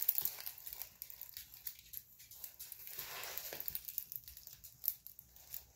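Clear plastic cover film on a large diamond-painting canvas crinkling and crackling irregularly as the canvas is handled and held up.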